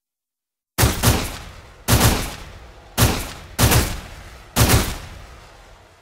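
Five gunshot sound effects in quick succession, the first coming just under a second in. Each is a sharp bang with a second hit right behind it and a long echoing decay.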